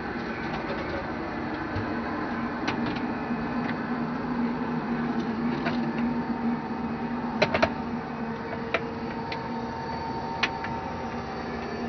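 Steady whir and hum of a space station module's ventilation fans and equipment, with a few sharp clicks and knocks; the loudest is a quick double knock about seven and a half seconds in.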